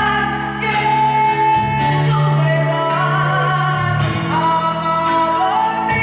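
Recorded song played for a mime: a woman singing a slow melody in long held notes over instrumental accompaniment.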